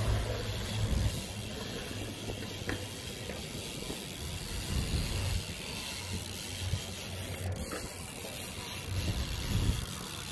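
BMX tyres rolling over smooth concrete: a steady hiss with a low rumble underneath.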